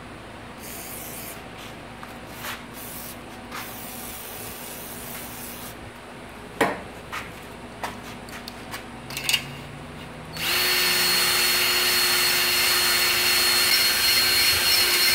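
Electric drill spinning a stone cylinder hone in a bore of a Jeep 4.0L inline-six cast-iron block, the stones scraping the cylinder wall with a steady whine, starting about ten seconds in. Before that come a few light clicks and knocks.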